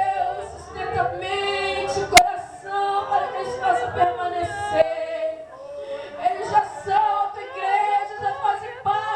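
Many voices of a church congregation singing together, largely unaccompanied, with one sharp click about two seconds in.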